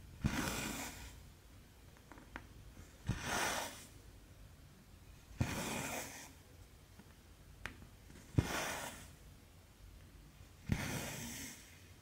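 A cross-stitch needle taps through the fabric, and each tap is followed by about half a second of hissing as the cotton thread is drawn through. There are five stitches, roughly one every two and a half seconds, with a couple of fainter ticks between.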